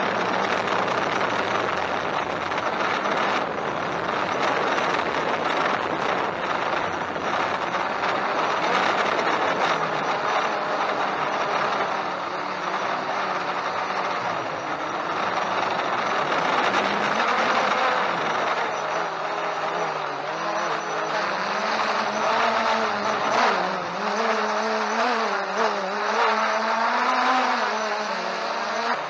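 Quadcopter drone's electric motors and propellers whirring, with a steady rushing noise; the motor pitch wavers up and down through the second half as the throttle keeps adjusting in gusty wind.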